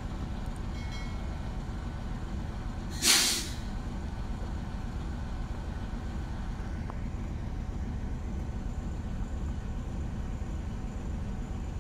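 A short, loud hiss of air from a train's air brakes about three seconds in, over a steady low rumble.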